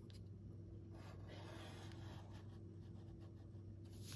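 Pencil lead scratching faintly along a ruler's edge, tracing lines on parchment paper laid over a paper template, starting about a second in. A low steady hum sits underneath.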